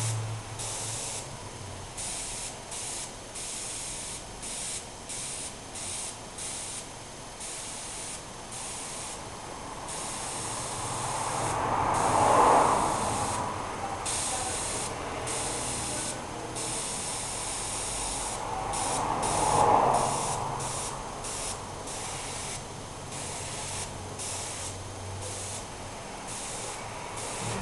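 Airbrush spraying in short bursts, its hiss starting and stopping over and over as the trigger is worked. Two louder whooshes swell and fade about twelve and twenty seconds in.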